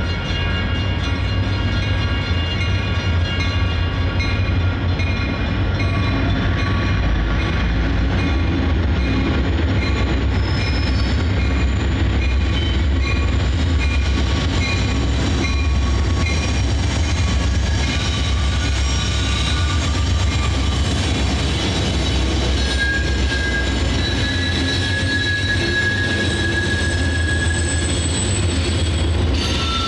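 Union Pacific diesel locomotive rumbling past as it leads a passenger train around a curve, followed by Amtrak Superliner cars. Steel wheels squeal on the curved track, with long high squeals in the second half.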